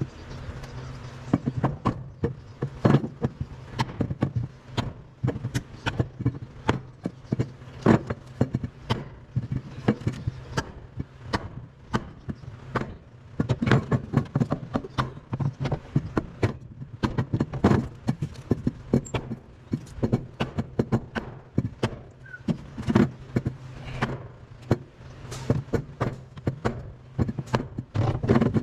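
Repeated hammer blows: a big hammer striking a block of wood held against a damaged car floor pan and rear body panel to knock the metal back down, irregular, about one or two blows a second with some quick runs, over a steady low hum.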